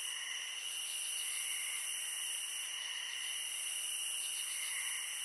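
Steady high-pitched hiss with several held high tones layered over it, faintly pulsing now and then.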